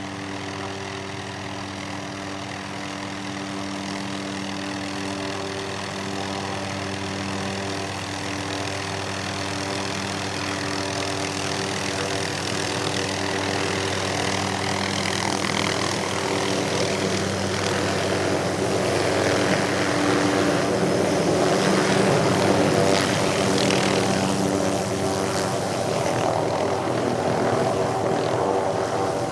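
Bell 505 JetRanger X helicopter heard from outside as it comes in on approach, its turbine whine and rotor sound growing steadily louder. A rushing noise builds through the second half as it draws close.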